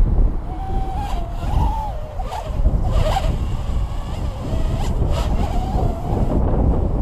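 Tyrant S quadcopter drone flying, its motors and propellers giving a thin whine whose pitch wavers up and down as the throttle changes. Heavy wind rumble on the microphone lies under it and is the loudest sound.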